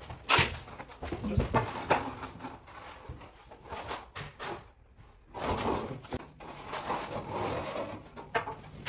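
Irregular knocks, clicks and rustling, with a sharp one about a third of a second in and another near the end.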